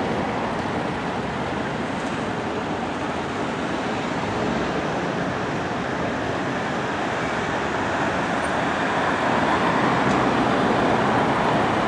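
Steady city street traffic noise, the wash of passing road vehicles, growing a little louder toward the end.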